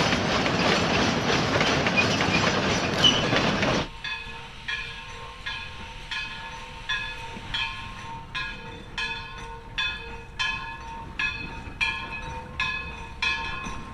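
A narrow-gauge train of hopper cars and coaches rolling past close by: a loud rumble with wheel clatter on the rails, which cuts off about four seconds in. Then a steam locomotive working slowly in the distance, its exhaust chuffing evenly about once every 0.7 seconds over a faint steady tone.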